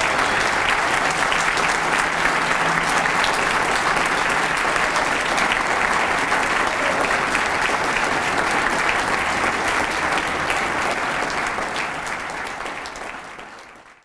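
Audience applauding steadily, many hands clapping together, fading out over the last couple of seconds.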